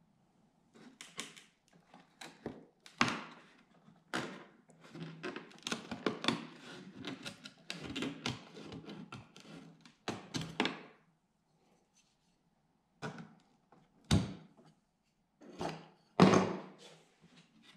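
Thin wooden trim strips being pried off a wooden roof panel with a small hand tool: irregular knocks and clicks with stretches of scraping and creaking, and a few sharper knocks near the end.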